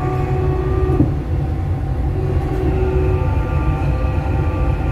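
Dubai Metro train running along elevated track, heard from inside the carriage: a steady low rumble with several held whining tones above it, and a single knock about a second in.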